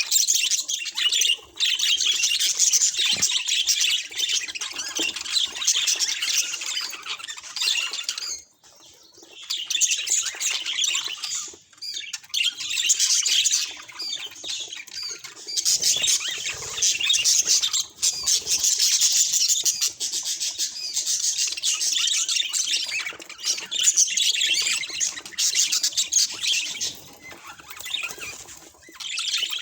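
Budgerigar chattering: a fast, continuous stream of high chirps, warbles and squawks, broken by a few brief pauses.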